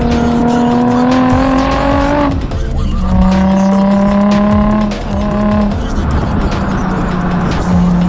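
Nissan 350Z's 3.5-litre V6 exhaust under acceleration: the engine note climbs for about two seconds, breaks off, and comes back lower and steadier, with brief dips later on. Background music with a light beat runs underneath.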